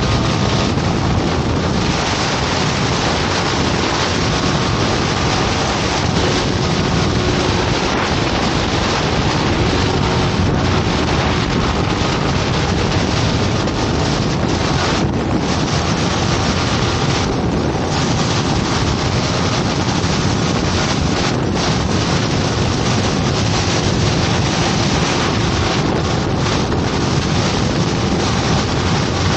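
Heavy wind noise buffeting the microphone of a Yamaha sport bike ridden at about 100 km/h, with the engine running steadily underneath.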